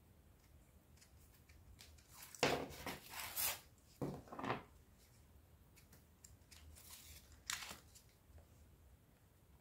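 Faint handling noise from EVA foam flower buds on wire stems being set into a bunch: a few short rustling scrapes, the loudest about two and a half, four and seven and a half seconds in.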